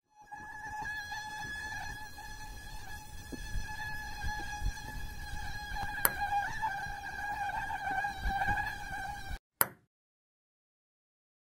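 A steady, high buzzing whine, wavering slightly in pitch, that cuts off suddenly about nine and a half seconds in; a short click follows.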